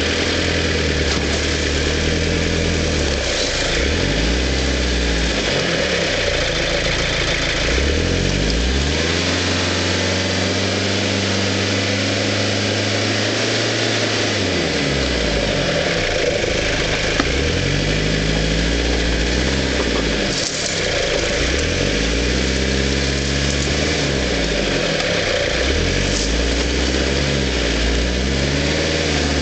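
Frontera 4x4's engine running under load off-road, its revs rising and falling again and again as the vehicle is worked slowly over rough, steep ground, with a steadier held pull about a third of the way through.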